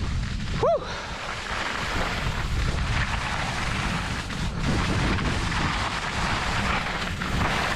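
Wind buffeting a helmet-mounted microphone and skis hissing and scraping over firm snow as a skier pulls away downhill, the hiss growing from about two seconds in as speed builds. A short chirp-like pitched sound comes just under a second in.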